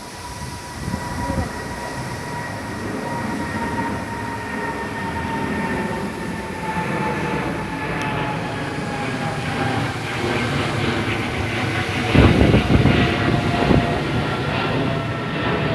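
Jet airplane taking off and climbing past: a high engine whine that slowly falls in pitch over a roar that grows louder. Gusts of wind buffet the microphone near the end.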